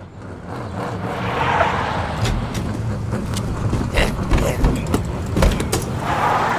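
An old car's engine running as the car drives past, with a swell as it comes near and several sharp knocks in the middle.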